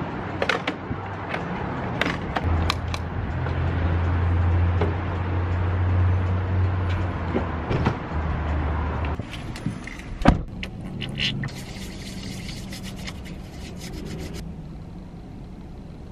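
Clicks and scrapes of a gas-pump nozzle being hung back on the pump, over a steady low hum of the forecourt. About ten seconds in a car door shuts with a single thud, and the sound turns quieter and muffled inside the car.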